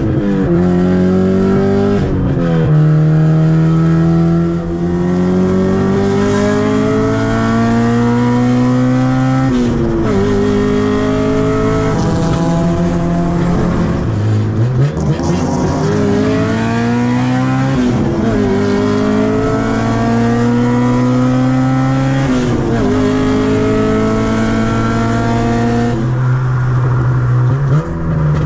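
A Honda car engine under hard acceleration, heard from inside the car. It revs up in long climbing pulls, and the pitch drops sharply at each gearshift, about every three to eight seconds. Around the middle the revs fall away and climb again.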